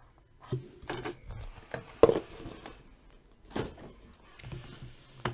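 Small card boxes being handled and set down on a table: a few scattered knocks and rustles, the sharpest knock about two seconds in.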